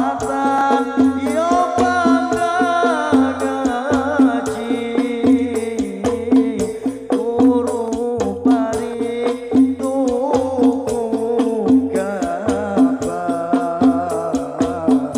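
Hadroh ensemble performing sholawat: a male voice sings a devotional melody into a microphone over a regular rhythm of hadroh frame drums (rebana).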